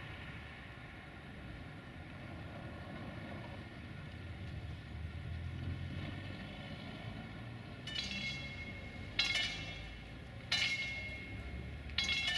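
Level-crossing warning bell starting up about two-thirds of the way in: separate ringing strikes roughly every second and a half as the crossing barrier comes down for an approaching train. A steady low rumble runs underneath.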